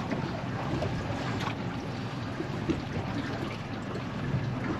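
Water lapping and trickling against the hull of a small boat drifting on calm sea: a steady, even wash with no engine or voice standing out.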